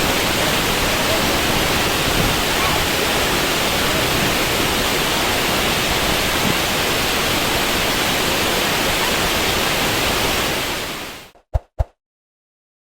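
Waterfall rushing steadily, an even roar of falling water. It fades out near the end, leaving silence broken by a few short clicks.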